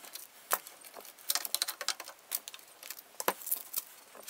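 Metal bar clamps and spring clamps being loosened and pulled off an epoxied chair stretcher repair: scattered clicks and rattles. There is some rustling as the wax-paper-wrapped oak splints come away.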